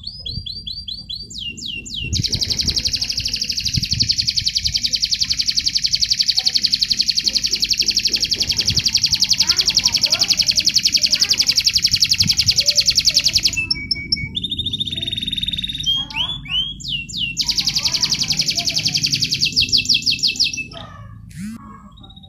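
Domestic canary singing contest-style song: a long, very fast rolled trill of about eleven seconds, a few short whistled phrases, then another fast trill.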